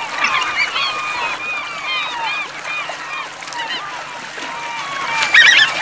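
A flock of gulls calling over one another, many short overlapping squawks and wails, with a louder burst of rapid high calls near the end.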